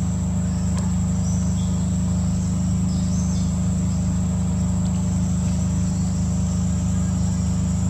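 Steady high-pitched drone of insects, one unbroken tone, over a loud, even low hum. A few faint short chirps come and go.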